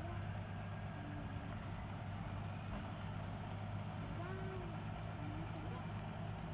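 Truck engine running steadily with a low, even drone.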